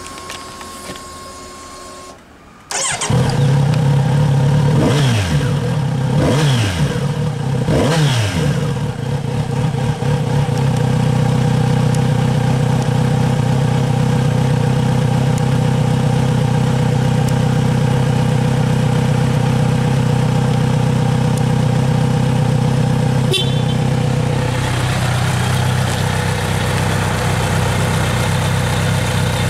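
Kawasaki Z900RS inline-four on its stock exhaust: a short steady whine with the ignition on, then the engine starts about two and a half seconds in. It is blipped three times, the revs falling back each time, then idles steadily, settling a little lower near the end.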